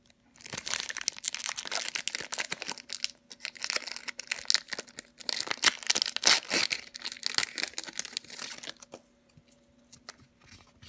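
Foil wrapper of a Pokémon trading-card booster pack being torn open and crinkled by hand, a dense crackling for most of the time, dying down to quieter handling of the cards near the end.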